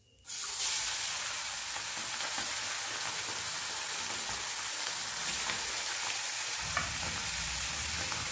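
Pomfret frying in hot oil in a kadai: the sizzle starts suddenly as the fish goes into the oil, then runs steady.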